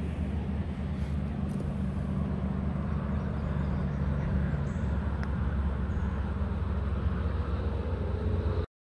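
Bicycle tyres rolling over gravel: a steady, even rolling noise with a heavy low rumble, cutting off abruptly near the end.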